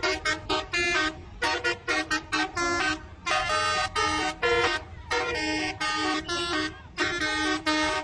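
Bus telolet horn, a set of electric trumpet horns, playing a tune of quick short toots and several longer held notes. Low engine and traffic rumble underneath.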